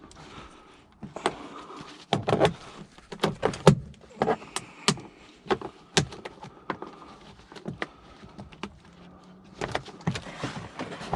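Irregular clicks, knocks and rattles of a locked suitcase being handled and tried, its lock and fittings clacking as someone works at getting it open.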